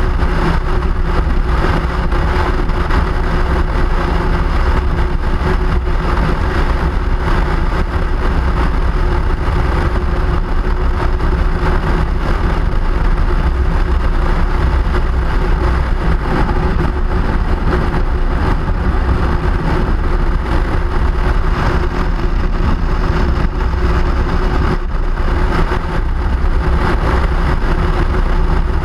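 A vehicle on the move at a steady speed: a constant motor hum over loud low rumble and rushing noise, unchanging throughout.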